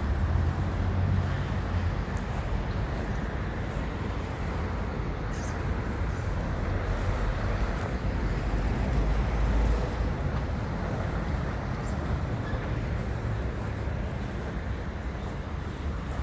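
Steady outdoor background noise with a strong low rumble that swells and eases, and no distinct events.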